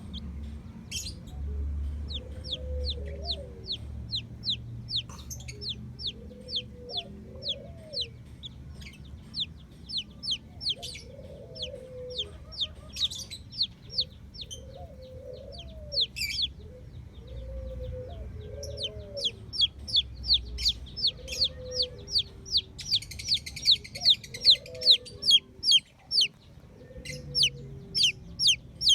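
Chicks peeping in a quick run of short, high, falling notes that grow louder toward the end, with a hen clucking low beneath them.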